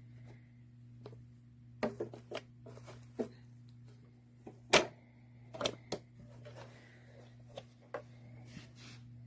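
Handling noise from the parts of an indoor dryer vent box: irregular clicks and knocks, the loudest about five seconds in, over a steady low hum.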